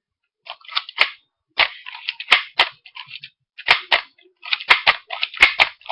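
NERF Reflex IX-1 toy pistol being worked by hand, its plastic mechanism giving an irregular series of sharp snaps and clacks with rattling in between.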